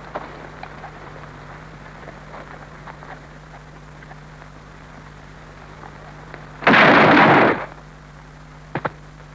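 One loud gunshot blast about seven seconds in, lasting nearly a second, from an old western film's soundtrack played through a Super 8 projector's line out. A steady low hum and faint crackle from the film sound track run under it.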